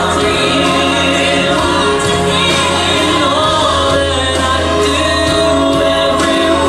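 Voices singing a worship song with instrumental accompaniment.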